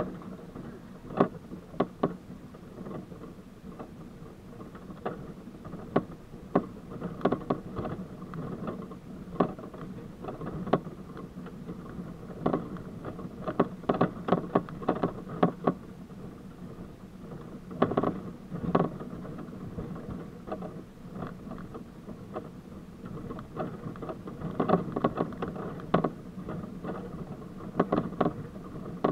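A Jeep Wrangler YJ crawling over a rocky dirt trail: the engine runs steadily underneath frequent irregular knocks and rattles as the vehicle jolts over rocks, coming in clusters several times.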